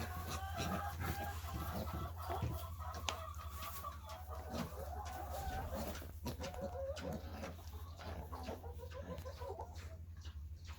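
Domestic hens clucking and calling over one another in a steady stream of short, wavering calls, with a steady low hum underneath.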